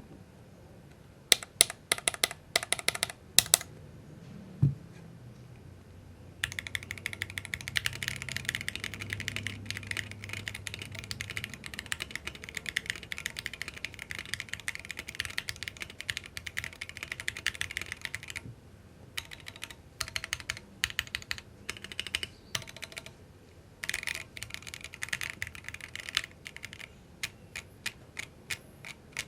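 Typing on an Akko Mod007 mechanical keyboard, a gasket-mounted aluminium board with an aluminium plate, Akko Jelly Black switches and ASA-profile keycaps. It starts with a few single key strikes and one low thump, then about twelve seconds of steady fast typing, then shorter runs and single keystrokes. The keys sound clacky, with a metallic ping that comes from metal-on-metal contact in the stock board.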